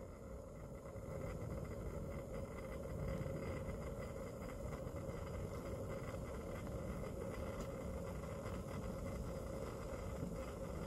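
Stanley stainless steel boil-and-brew pot of water heating and vibrating, giving off a steady little ringing tone over a low rumble. The water is just about at the boil.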